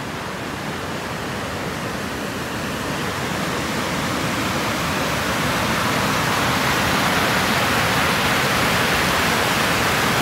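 Water pouring over a concrete dam spillway and rushing into the rocky rapids below, a steady roar that grows louder over the first half and then holds.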